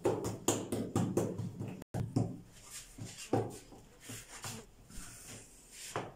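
Hands working dough. A quick run of light pats and slaps comes first, then a brief gap, then sparser soft taps as small dough rounds are pressed and laid on a wooden board.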